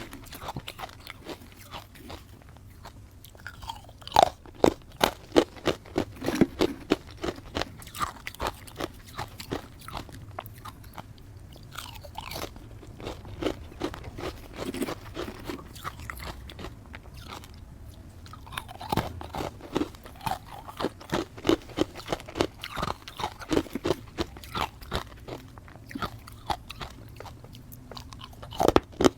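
A person biting and chewing matcha-powdered ice: dense, irregular crunching made of many sharp cracks, coming in runs with brief lulls.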